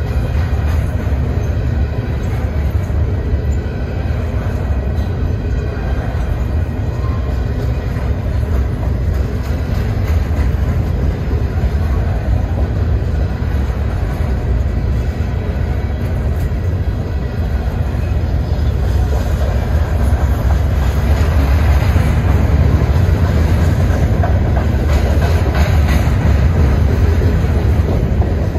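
Freight train cars rolling past on the rails: a steady, loud, low rumble of wheels and cars that grows a little louder over the last third.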